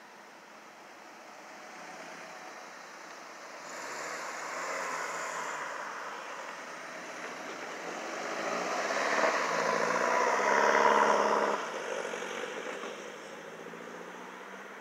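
A car driving past on the road. Its engine and tyre noise builds over several seconds, is loudest about two-thirds of the way through, then drops off sharply and fades.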